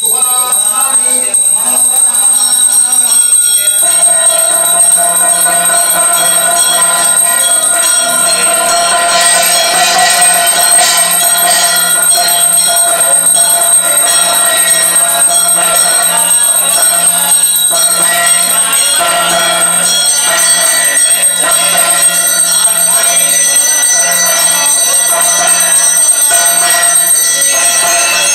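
Temple bells ringing continuously, with music and a steady low drone under them.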